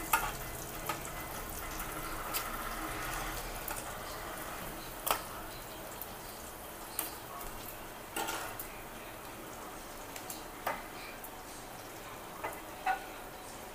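Hot oil sizzling steadily in a frying pan after a batch of small fish, with sharp clicks and taps of a metal spatula against the pan and a steel plate every second or two.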